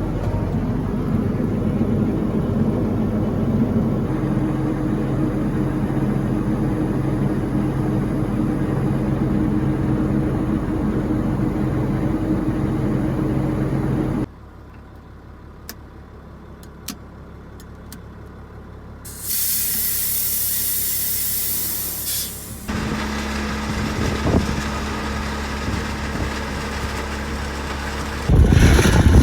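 Engine of dirt-scraping equipment running steadily, which cuts off suddenly about fourteen seconds in. After a quieter stretch with a few sharp clicks comes a few seconds of loud hiss, then an engine running again, much louder near the end.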